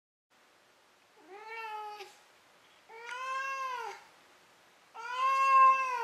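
Domestic cat meowing three times, starting about a second in. Each meow is about a second long and arches up then down in pitch, and the third is the loudest.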